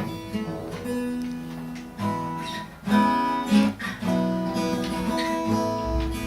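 Acoustic guitar strumming chords, with a new chord struck about every second.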